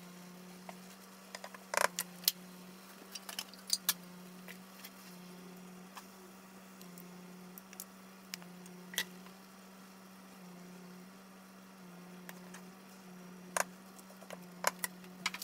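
Spatulas stirring and scooping noodles in a nonstick skillet, with scattered clicks and taps of the utensils against the pan and a ceramic bowl, over a steady low hum.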